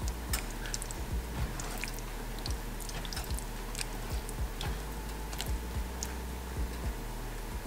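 Silicone spatula stirring thick ground-meat sauce in a simmering nonstick skillet: wet squishing and scraping with irregular small clicks and pops.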